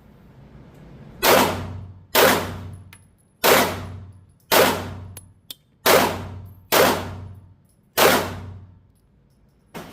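Glock 17 9mm pistol fired seven times in slow, aimed fire, about one shot a second, each report echoing briefly in the indoor range.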